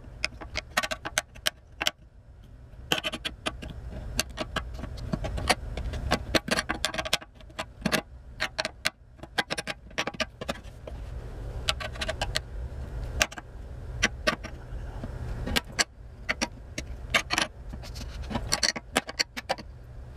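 Small hand opener cutting around the rim of a sealed steel ammunition tin (spam can): an irregular run of sharp metal clicks and scrapes with short pauses as it bites and levers along the lid, over a low steady hum.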